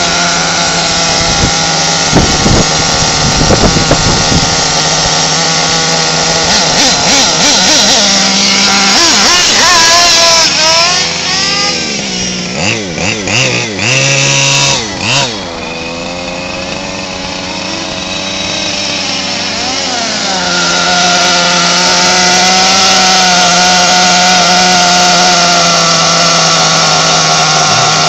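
Losi LST XXL nitro monster truck's two-stroke glow engine running. Its pitch rises and falls with the throttle as the truck drives in the middle, then settles into a steady idle for the last several seconds.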